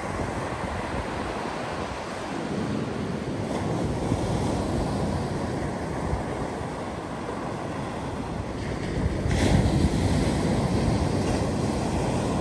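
Small ocean waves breaking on a sandy beach and washing up the shore: a steady surf rush that grows loudest about nine and a half seconds in, as a wave breaks close by.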